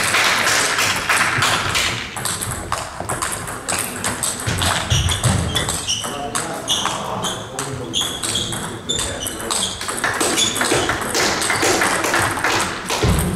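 Table tennis balls clicking off bats and tables in quick, irregular ticks, from the rally in front and from neighbouring tables at once, with a few low thuds about five seconds in.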